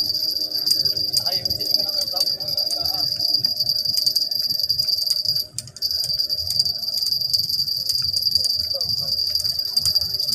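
Insects droning steadily in one high-pitched, unbroken whine that cuts out briefly about halfway through and then resumes.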